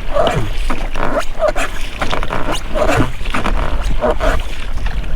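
Rubber rowlocks of an inflatable rowing boat creaking on each oar stroke, each creak sliding down in pitch, about once a second, with water splashing off the oars.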